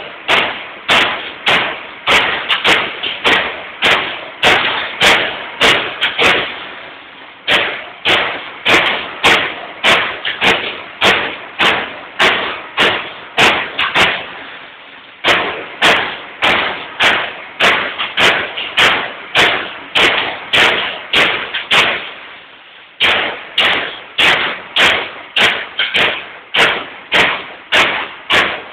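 Baykal BPM-T CNC turret punch press striking sheet metal in a fast series of hits, about two to three a second, in runs separated by brief pauses.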